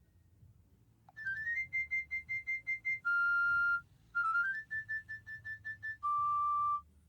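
PalmOne Treo 600 phone playing one of its built-in ringtones: a synthesized, whistle-like melody that starts about a second in after a short click. A quick rising run leads into rapid repeated notes and a long held tone, and the phrase then comes again at a lower pitch.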